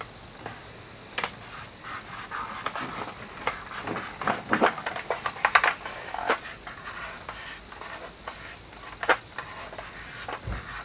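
Hands working on a plastic Playmobil toy ambulance while sticking on a sticker: scattered small clicks, taps and scratching of plastic and sticker backing. The sharpest click comes about a second in, with others near five and nine seconds.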